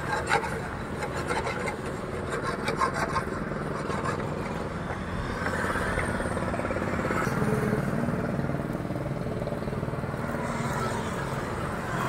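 Wooden spatula scraping and knocking against a frying pan, clicking rapidly for the first few seconds, over street noise. About halfway through, a steady engine hum from traffic rises, with voices around it.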